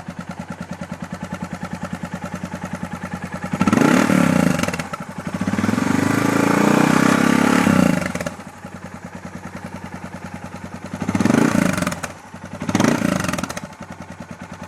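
Suzuki DR650 single-cylinder engine running through a GSX-R1000 exhaust can with a Kientech mid pipe, idling with an even pulse. It is revved with a short blip about four seconds in, held at higher revs for about three seconds, then blipped twice more near the end.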